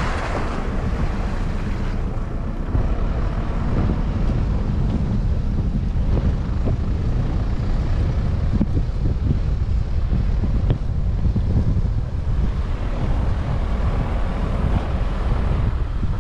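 Strong wind buffeting the microphone in a steady low rumble, with surf washing in behind it; the wash swells near the start and again in the last few seconds.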